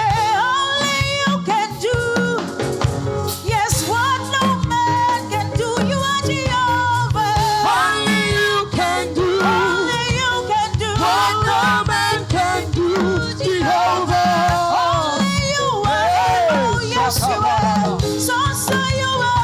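Live gospel praise music: a church choir and band playing, with drums and bass under a lead vocal line with vibrato.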